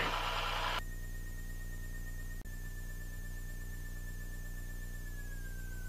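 Electrical hum with a thin high steady whine on the Piper Cherokee 235's intercom audio; the whine dips slightly a couple of seconds in and slides lower near the end, after a brief rush of noise cuts off under a second in.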